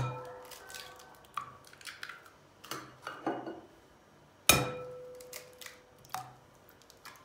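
Raw eggs cracked one at a time against the rim of a glass mixing bowl. Two sharp knocks, one at the start and one about four and a half seconds in, each leave the glass ringing briefly, with softer clicks and taps of shell in between.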